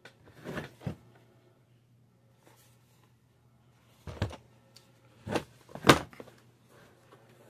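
Cardboard card-game box handled on a tabletop: a few short thumps and knocks as it is tipped up and set back down, the loudest about six seconds in.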